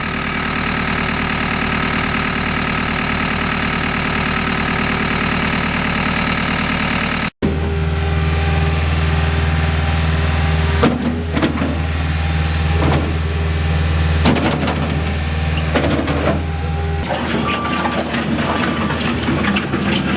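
The skid steer loader's engine runs steadily and drops out for an instant about a third of the way in. It then carries on at a lower, deeper pitch, with scattered knocks and clatters over the top.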